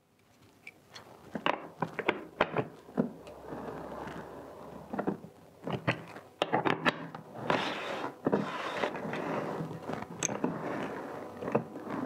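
Rovin Ecospin hand-cranked portable washing machine being agitated for its rinse. A few clicks and knocks come first, then a steady rattle of the plastic lid and drum with water swishing inside as the handle is turned, heaviest from about seven seconds in.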